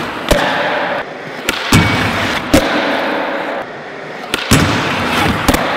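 Skateboard wheels rolling on a concrete floor, broken by several sharp cracks of the board popping and slapping down as tricks are landed.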